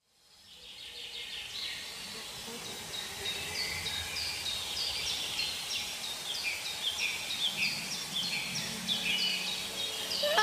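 Woodland birds singing, fading in from silence: many short, quick downward-sliding chirps repeating over a soft steady background rush.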